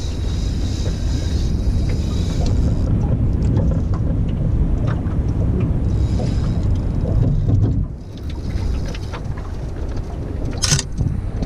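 Wind buffeting the microphone as a steady low rumble, with one sharp click near the end.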